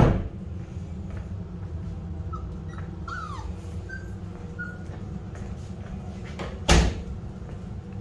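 Rottweiler puppies giving a few faint, short high squeaks and whimpers over a steady low hum of room fans and air conditioning. Two loud sharp knocks stand out, one at the very start and one about two-thirds of the way through.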